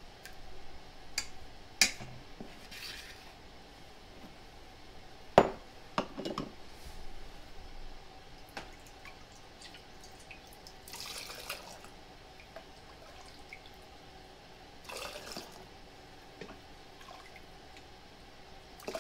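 Chicken broth being poured into glass canning jars in short splashes, with sharp clinks of glass and utensil; the loudest knock comes about five seconds in.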